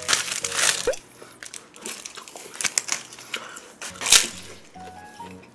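Plastic film wrapper of a convenience-store triangle kimbap crinkling as it is pulled off, followed by scattered small rustles. About four seconds in comes a bite into the dry seaweed-wrapped rice ball, the loudest sound.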